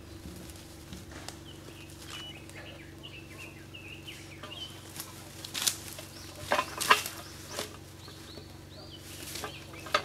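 A steel winch ground anchor being worked into the dirt, with several sharp knocks and scrapes between about five and eight seconds in. Under it are a steady low hum and scattered bird chirps.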